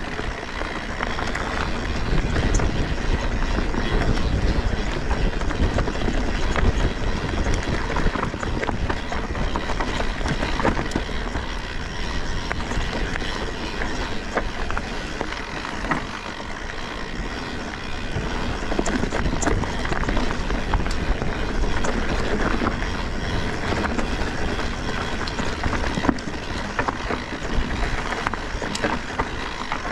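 Mountain bike riding down a rough trail: steady rumble of tyres over the ground with many small rattles and knocks from the bike.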